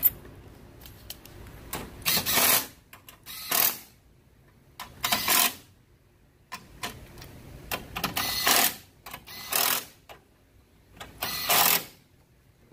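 About six short bursts of a tool running fasteners back in, each about half a second long with pauses between.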